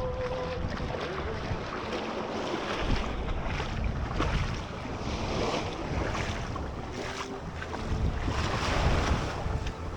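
Wind buffeting the microphone over shallow sea water and small waves washing at the shoreline, rising and falling in surges.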